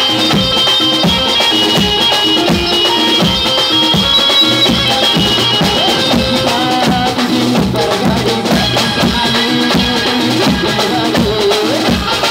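Live band music amplified over a PA, with a steady drum and percussion beat under keyboard tones; a male singer's voice comes in at times.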